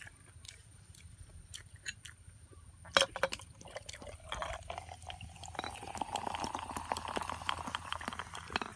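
Cola poured from a glass bottle into a glass jar of ice. The pouring tone rises steadily as the jar fills, with crackling fizz over it. A sharp click comes about three seconds in, just before the pour.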